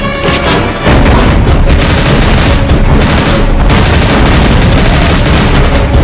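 Loud soundtrack music mixed with heavy booming impact effects. The sound grows denser and louder about a second in.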